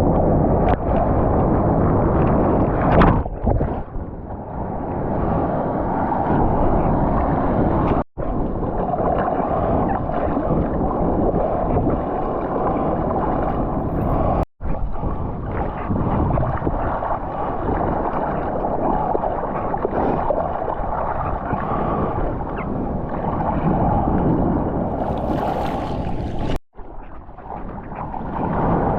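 Surf and rushing water churning around a bodyboarder, heard through a GoPro's microphone with wind buffeting it; the sound cuts out completely for a moment three times.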